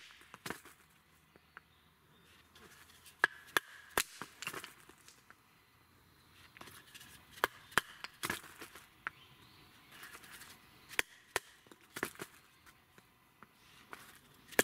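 A wooden baton knocking on the spine of a fixed-blade knife to split a piece of firewood into kindling on a log stump. Sharp wooden knocks come at irregular intervals, some single and some in quick groups, with the cracks of the wood splitting.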